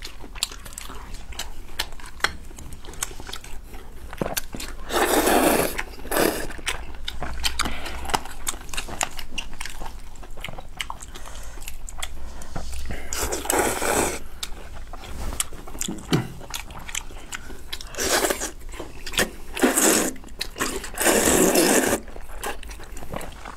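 Close-miked eating: steady small wet clicks of chewing and lip-smacking, broken by five loud slurps of noodles, the longest near the end.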